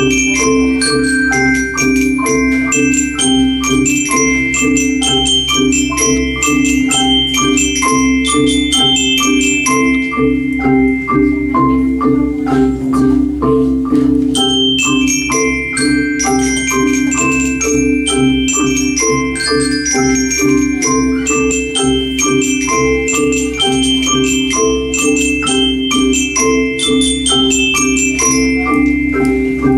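Ensemble of Orff-style xylophones played with mallets, as a tune. A band of low notes runs throughout, under many short, quick struck notes higher up that ring briefly.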